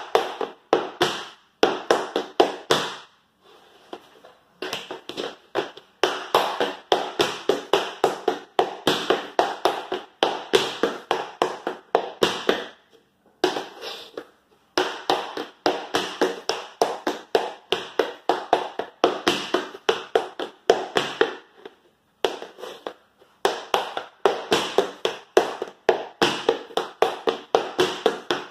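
Metal taps on tap shoes striking a wooden floor in quick runs of riffs: 5-beat riffs (brush, scuff, heel, dig, toe) in the first half, then 6-beat riffs with an extra heel drop, each run separated by a short pause.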